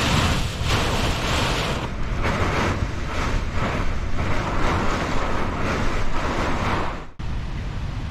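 Violent derecho thunderstorm: heavy rain and gusting wind in a loud, even rush that surges and falls back in quick gusts. About seven seconds in it cuts to a quieter, steady rush of wind and rain.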